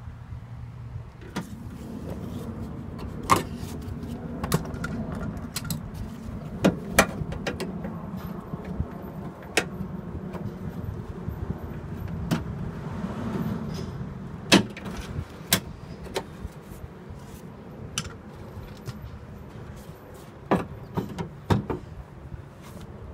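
Irregular metallic clicks and knocks of hand tools, a socket wrench on an extension and pliers, against the sheet-metal inner panel of a 2000 Toyota Tacoma's door as the bolts holding the door handle are worked loose, with a quick cluster of knocks near the end. A steady low rumble runs underneath.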